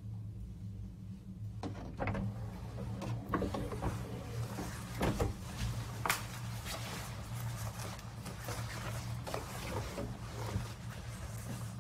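Light handling noises, with rustles and short knocks and clicks of clothes and objects being moved around, over a steady low hum.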